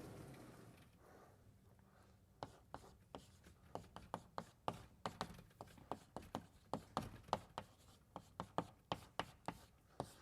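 Chalk tapping and scraping on a blackboard as someone writes: a run of sharp, irregular taps, several a second, starting about two seconds in.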